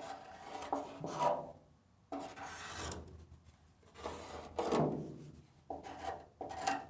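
A handful of scraping, rubbing strokes against the pickup bed's sheet metal, each lasting under a second with short gaps between, some with a faint metallic ring.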